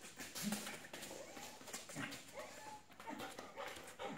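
Dog whining in a string of short rising-and-falling whimpers over quick panting, excited and eager for the tug toy.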